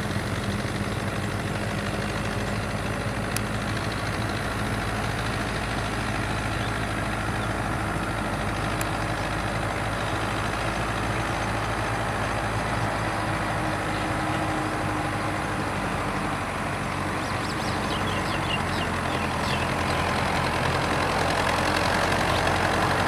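Fiat 850 tractor's diesel engine running steadily as it pulls its trailer, growing louder as the tractor approaches near the end.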